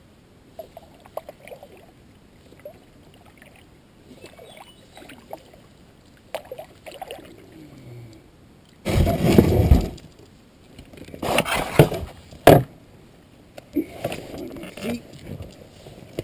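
Skin-on-frame canoe coming in to shore: light paddle splashes and drips, then two loud bouts of splashing and scraping, about nine and eleven seconds in, with a single sharp knock.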